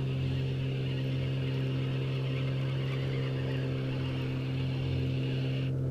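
A spinning reel winding in line on a feeder rod as a hooked fish is brought in, pausing briefly near the end. Over it runs a louder, steady engine drone at one constant pitch.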